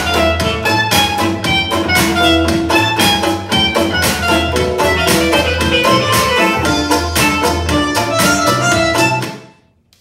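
Instrumental music with a steady beat and strong bass played through a portable Bluetooth speaker, fading out about nine seconds in.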